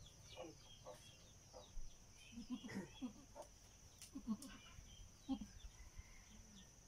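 A few short, soft low grunting calls from a doe goat tending her newborn kids, over faint chirping of small birds and a steady high whine.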